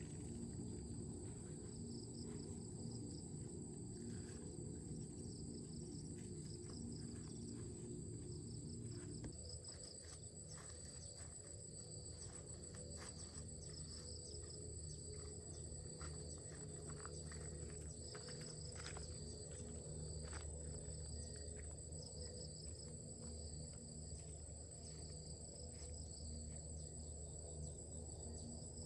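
Insects trilling steadily outdoors, a high continuous chirr with a second pulsing trill below it, over a low background rumble. Scattered light clicks come through the middle.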